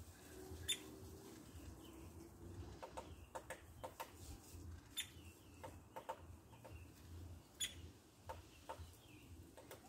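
Woodpecker tapping on wood in single, sharp, irregularly spaced taps, roughly one every half second to second.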